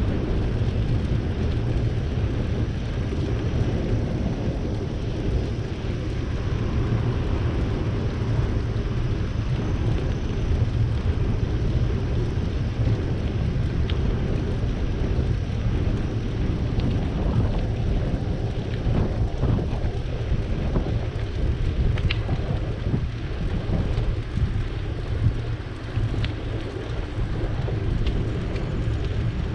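Wind buffeting the microphone of a camera riding along on a moving bicycle: a steady low rumble of noise.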